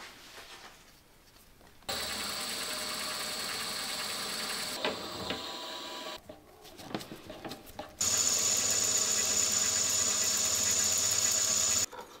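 Milling machine spindle motor running steadily with a high whine while spot-drilling and then drilling a hole in an aluminium part: two runs, the second louder, each stopping abruptly, with a few light clicks between them.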